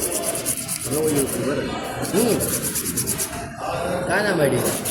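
Motorcycle rear disc brake pads being rubbed down by hand on an abrasive, quick even scraping strokes, done to stop the rear brake from making noise. Men's voices talk briefly over it.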